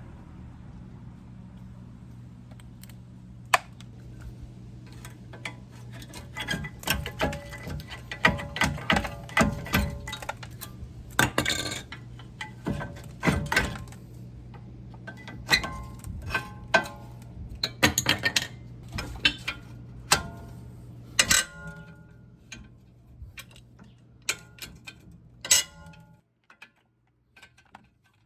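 Steel tools and brake parts clinking and tapping together in irregular sharp strikes, some ringing briefly, over a steady low hum that stops about 26 seconds in.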